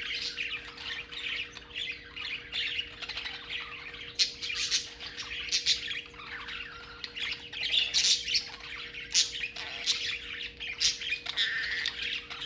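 Budgerigars chattering, with a continual run of short, irregular squawks and chirps; a faint steady hum lies underneath.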